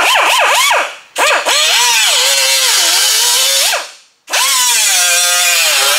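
Pneumatic cut-off wheel cutting through rusted sheet-metal quarter panel. It runs in three bursts, and its whine drops sharply in pitch as the wheel bites into the metal and climbs back as it eases off.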